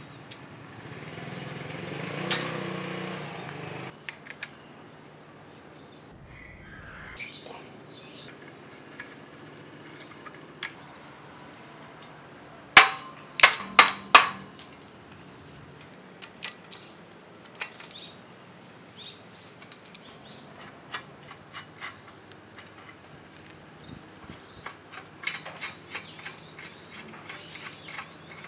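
Rusty bicycle frame and parts being handled and taken apart by hand: scattered small clicks and clinks, a rough scraping rustle in the first few seconds, and a quick run of loud knocks about thirteen seconds in.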